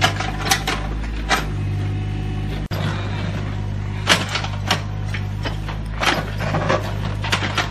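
Mini excavator's diesel engine running steadily while its steel bucket digs through soil and broken brick, with a series of sharp knocks and scrapes of the bucket against rubble.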